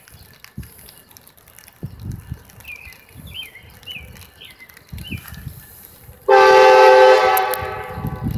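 Diesel freight locomotive's air horn: a sudden loud blast starting about six seconds in, several notes sounding together as a chord, held steady and easing off slightly near the end.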